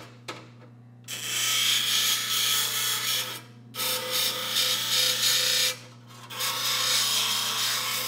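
The DoAll bandsaw's built-in grinding wheel grinding down a freshly welded bandsaw blade joint to take off the weld slag, in three grinding passes, the last one shorter, over a steady motor hum.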